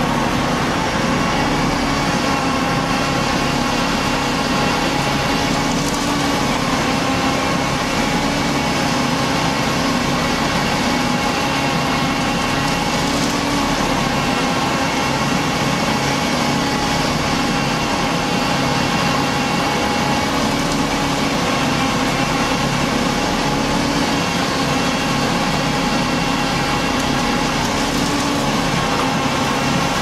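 Concrete mixer truck's diesel engine running steadily while the mixing drum turns, a constant hum of several even tones that holds throughout.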